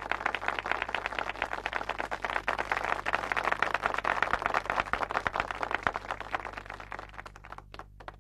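Audience applause: many hands clapping steadily, thinning to a few scattered claps near the end.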